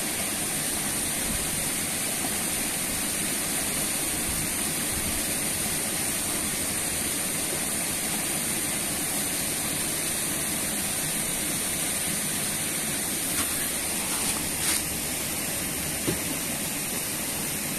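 Steady rushing of flowing water in an irrigation channel, an even hiss with no break, with a few small ticks near the end.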